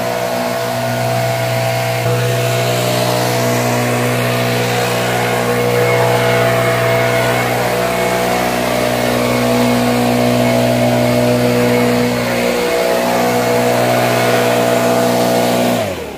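Engine running steadily at constant speed, then shut off near the end, its pitch falling as it winds down.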